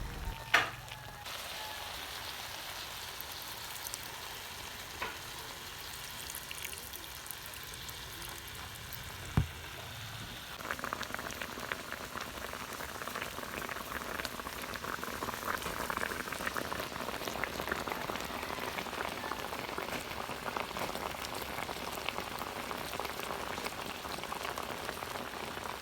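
Fish in a wok-style pan of coconut milk bubbling and sizzling, a steady crackle that grows louder and denser about ten seconds in. A few knocks of utensil on pan near the start and one more just before the rise.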